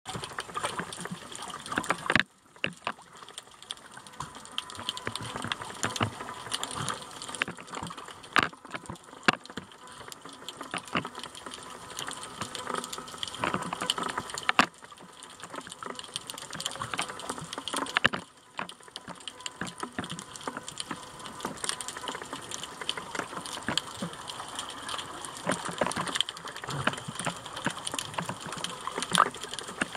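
Water sloshing and bubbling around a camera held just at or under the surface, with many scattered clicks and crackles. The sound dips suddenly and briefly a few times.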